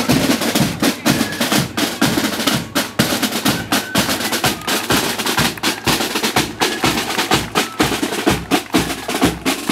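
Marching flute and drum band playing: side drums beat a fast, busy rhythm over a bass drum, with flutes faintly above.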